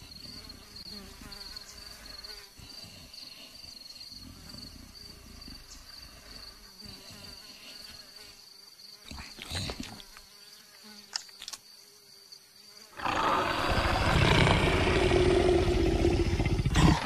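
Faint steady insect drone over a quiet savanna background, then about thirteen seconds in a loud, rough, drawn-out vocal sound from a cartoon leopard that lasts to the end.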